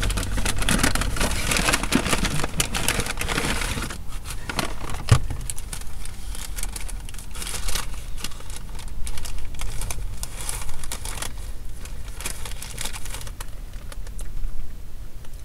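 Food packaging crinkling and rustling as it is handled, dense for the first few seconds and then in scattered crackles, with one louder knock about five seconds in, over a steady low hum.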